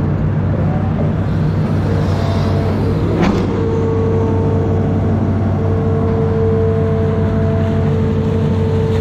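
Amphibious excavator's diesel engine running steadily under working load, with a steady whine over it that drops out and returns, and one brief clank about three seconds in.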